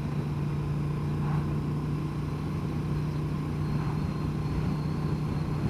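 Honda Transalp XL750 parallel-twin engine running at a steady pace, with wind rush over it.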